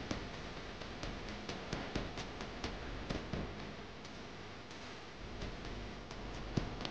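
Faint rapid ticking, about three clicks a second, over a low steady hiss.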